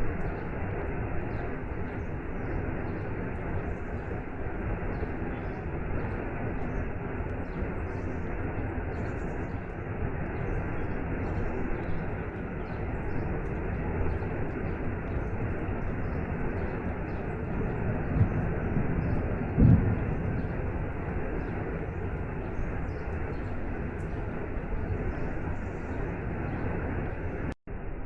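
Steady rushing water of a waterfall with rain, an even roar with two brief low rumbling surges about two-thirds of the way through. The sound drops out for an instant near the end.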